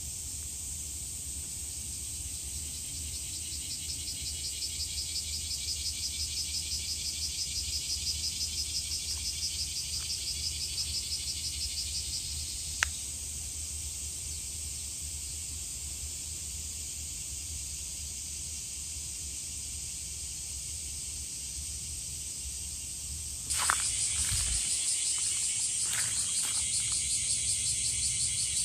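Insects trilling in a steady, fast-pulsing chorus, with a single sharp click about halfway through. Shortly before the end the chorus suddenly gets louder, with a knock at that moment.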